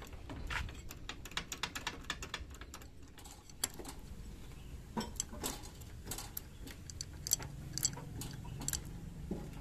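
Irregular metallic clicks and ticks from a truck's hand-operated cab-tilt hydraulic pump being worked with a steel lever bar. The mechanic finds air has got into the pump.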